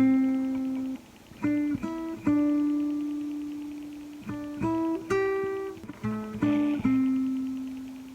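Acoustic guitar playing a slow melody: short runs of plucked single notes, each phrase ending on a note left to ring and fade.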